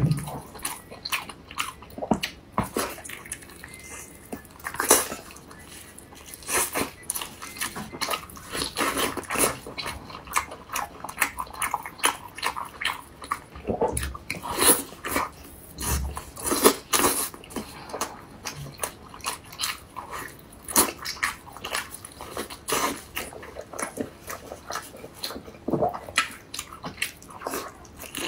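Close-up mouth sounds of a person biting and chewing soft, sauce-coated braised intestines and offal: many irregular short wet clicks and smacks.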